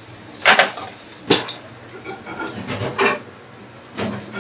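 Kitchen utensils and dishes clattering, with four sharp knocks spaced unevenly through the stretch.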